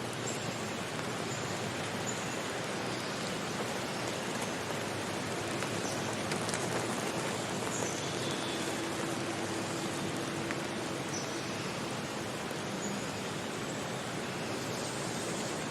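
Steady hiss of rushing water, even and unbroken, with a few faint short high notes now and then.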